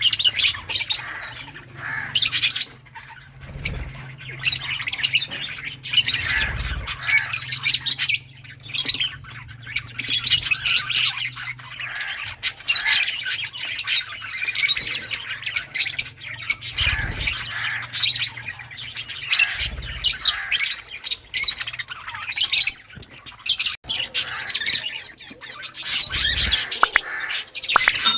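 A group of lovebirds chirping and squawking in rapid, shrill bursts, calls overlapping almost without pause, over a low steady hum.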